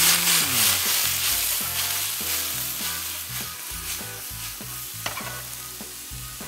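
Vegetables sizzling in a hot frying pan as they are sautéed and tossed, with short knocks from the pan. The sizzle fades steadily over a few seconds.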